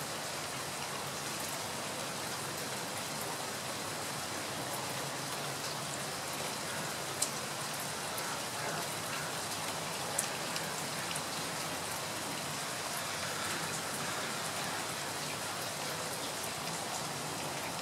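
Steady hiss of falling rain, with a couple of louder drops ticking sharply about seven and ten seconds in.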